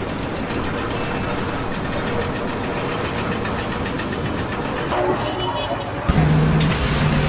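Steady machinery noise, a rumble with no distinct strokes. About six seconds in it gets louder, with a steady low hum.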